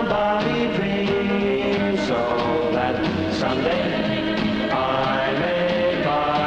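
Music with held, sustained chords that change every second or two.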